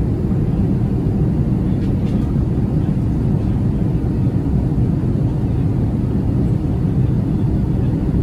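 Steady low rumble of cabin noise inside an Airbus A380-800 in flight.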